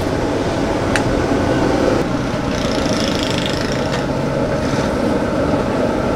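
Steady roadside traffic noise with engines running, and a single short click about a second in.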